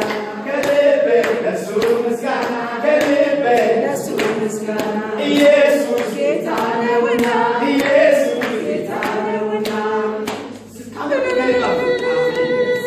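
Church congregation singing a worship song together, with clapping. A long note is held steady near the end.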